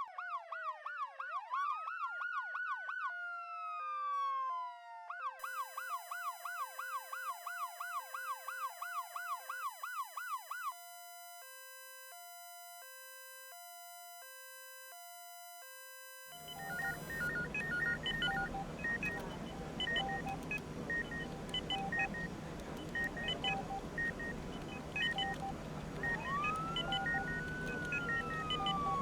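Electronic emergency sirens running through their modes: fast up-and-down yelping sweeps, then a quick warble over two alternating pitches, then a slower hi-lo two-tone switching about once a second. About sixteen seconds in, they give way to room ambience with a low hum and scattered short electronic beeps from medical equipment. Near the end a single siren sweep rises and then falls.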